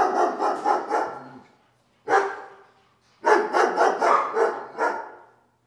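Stifled human laughter in quick bursts, about five a second, coming in two runs that fade away, with a single burst between them.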